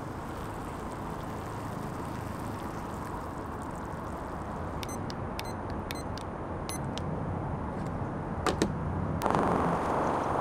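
Hot water pouring from an electric kettle into a paper cup of instant noodles with a steady hiss. Then a digital kitchen timer beeps about six times in quick succession as its buttons are pressed to set three minutes, followed by two sharp clicks. Near the end the sound switches abruptly to a louder, brighter steady hiss.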